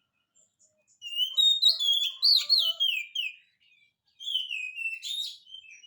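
Oriental magpie-robin (kacer) in full song: two phrases of rapid, loud whistled notes sliding up and down, the first starting about a second in and the second after a brief pause.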